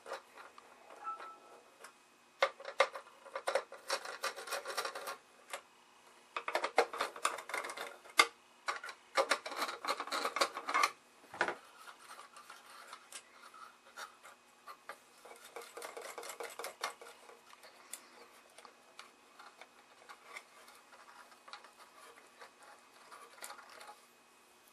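Small metallic clicks, scrapes and clinks of hand work on a tube tester's steel chassis: a nut driver turning out the screws that hold the circuit board, with screws and hardware being handled. The sounds come in bursts of rapid clicking in the first half, then thin out to scattered ticks.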